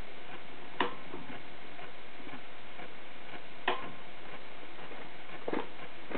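Compressed air hissing steadily into a 1935 IMP Tornado V-4 expansion model engine while the air pressure is brought up to start it. A few sharp clicks come about three seconds apart.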